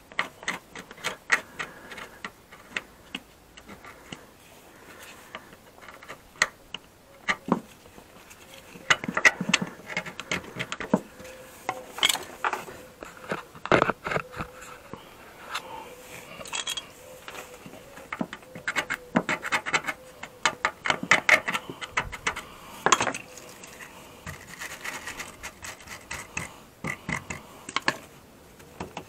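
Sandpaper rubbed by hand over rusty spots on a Mazda MX-5's steel underbody: irregular short scrapes and taps with brief pauses between strokes.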